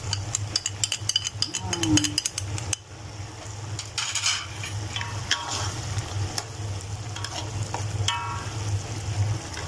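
A metal spoon is clicking and scraping in a wok as a cook stirs the sauce, with a quick run of taps in the first few seconds. The sauce is frying with a low sizzle underneath.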